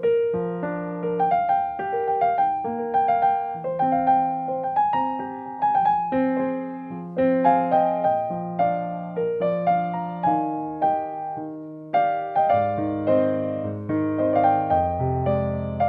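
Background piano music: a gentle melody of struck single notes over chords, with deeper bass notes joining about twelve seconds in.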